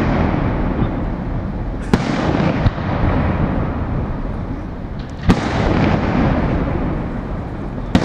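Aerial fireworks shells bursting: three sharp bangs about three seconds apart, each trailing off in a rolling echo, over the continuous rumble of the display.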